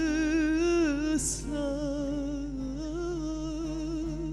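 A woman singing a Turkish folk song (türkü) into a microphone, drawing out a long ornamented line with a wavering vibrato, with a brief hiss about a second in.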